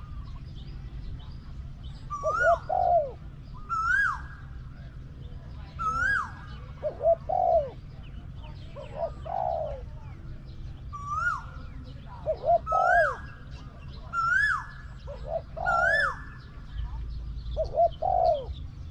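Spotted doves cooing, repeated phrases of low, curved coo notes every second or two. Another bird's sharp whistles, sliding up and falling back, are repeated between the coos.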